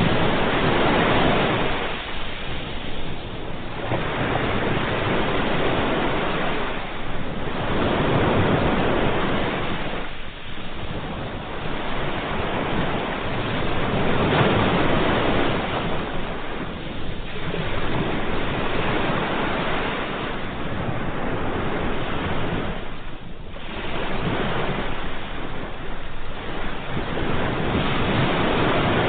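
Sea waves washing in and drawing back, a continuous rushing that swells and ebbs every few seconds.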